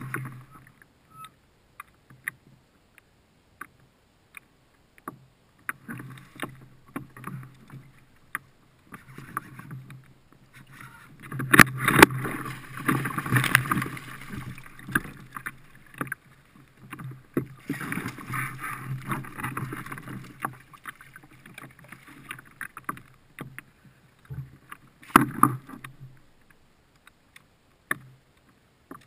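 Water sloshing and knocks and clicks of fishing gear on a kayak while a tautog is fought on a rod and reel and brought to the landing net. There are two longer, louder stretches of splashing and rustling, one about a third of the way in and one past halfway, and a short burst later on.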